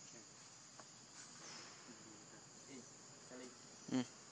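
Steady, high-pitched chorus of insects. A short, loud, rapidly pulsed sound comes about four seconds in.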